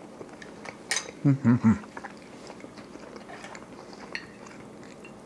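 A person eating a rolled pancake with knife and fork. About a second in there is a sharp clink of cutlery on a plate, then three short closed-mouth hums ('mm'), with quiet chewing.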